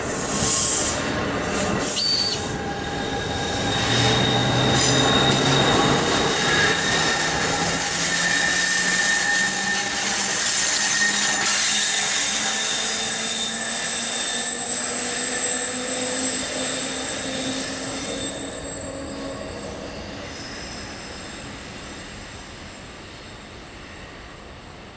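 NJ Transit Multilevel II bilevel push-pull train, with an ALP-46A electric locomotive at the rear, rolling past at close range as it pulls into the station. The wheels squeal with high steady tones over the rumble of the cars, and low whining tones slowly shift in pitch. The sound fades over the last several seconds once the locomotive has gone by.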